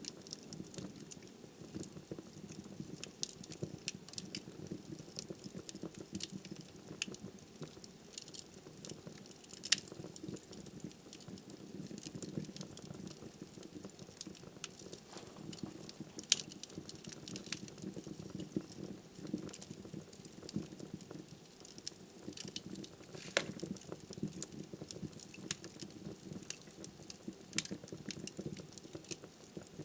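Wood fire burning in a fireplace: a steady low rumble of flames with frequent sharp crackles and pops of burning firewood, a few louder pops standing out.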